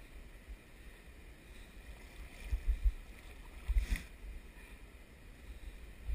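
Water sloshing and lapping as a wading angler works a landing net, with a brief splash about four seconds in. Low rumbling bumps on the microphone are heard now and then.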